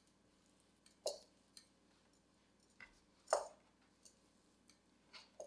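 Metal kitchen tongs clicking a few times while handling a cooked dumpling in its cloth wrapping on a wooden board: three short clicks, the loudest a little past three seconds in.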